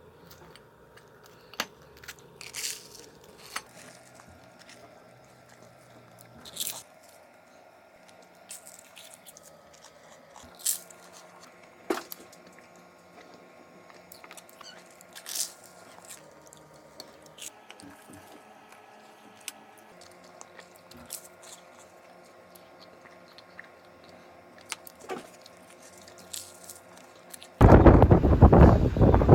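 Someone eating: scattered crunches and bites over a faint steady hum. Near the end, a sudden loud rush of wind on the microphone takes over.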